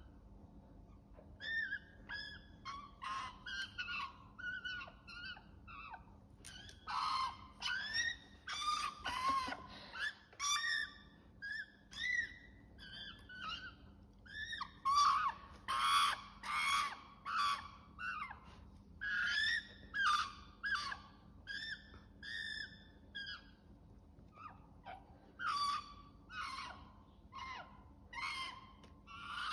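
Australian magpie warbling: a long run of short, quavering, gliding calls, with a brief lull about three quarters of the way through.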